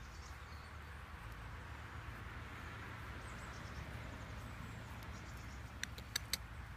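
Quiet outdoor background: a steady low rumble under a faint hiss, with three short sharp clicks close together near the end.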